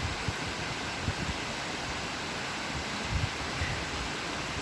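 Steady rush of a waterfall, with a few soft low thumps on the microphone.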